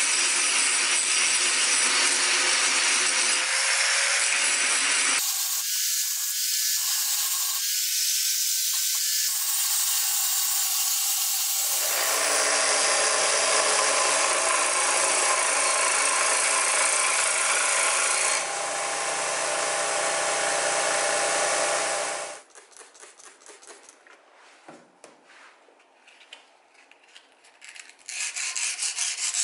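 Power grinders working a steel planer blade. First an angle grinder grinds the metal. Then a belt grinder runs, its motor hum steady under the belt's rasp. About 22 seconds in the grinding stops, leaving quiet handling clicks for several seconds, and a louder rasping noise comes back near the end.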